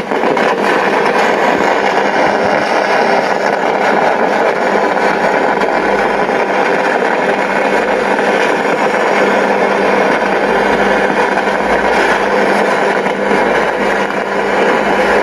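Home theater amplifier's speakers putting out a loud, steady hum with a hiss over it, the fault still present after the blown 22 µF 50 V capacitor was replaced; such humming is what shorted or failed TDA2030 amplifier ICs can cause.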